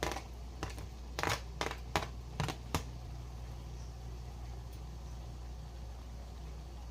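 A quick run of about eight sharp clicks and knocks in the first three seconds, over a steady low hum.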